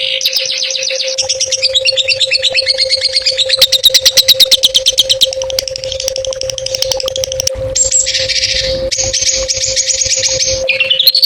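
Songbird song in fast, chattering trills, with harsher buzzy phrases in the second half, over a steady low tone.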